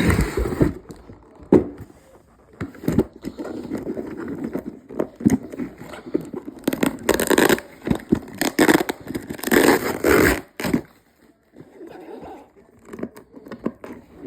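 Cardboard packaging and tape being scraped, rustled and torn as a taped toy box is pried open, in irregular stretches with louder bursts about seven and ten seconds in.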